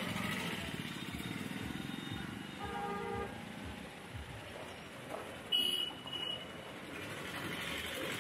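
Busy street traffic with vehicle horns. A horn sounds for about half a second, about three seconds in. A short, loud, high-pitched toot comes about five and a half seconds in, with a briefer one just after.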